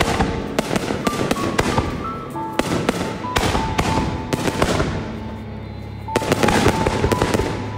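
Aerial firework shells bursting overhead, a rapid run of bangs and crackling. It eases off around five seconds in and picks up again with a fresh volley just after six seconds.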